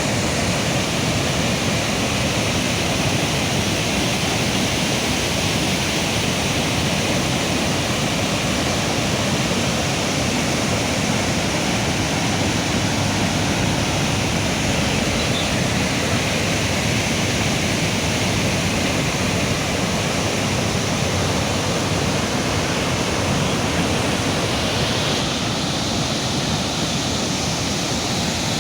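Floodwater rushing in a steady, loud roar of flowing water, its tone shifting slightly near the end.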